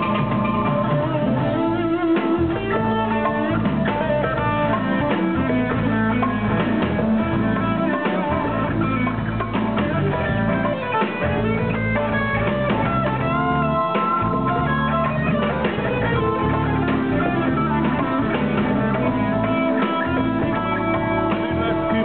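A live band playing, with electric guitar to the fore over drums.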